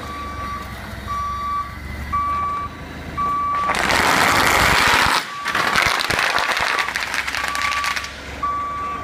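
Dense popping and crackling of bubble wrap bursting under a forklift's tyres, loudest from about four to eight seconds in. Under and around it the forklift's backup alarm beeps about once a second over the low hum of its engine.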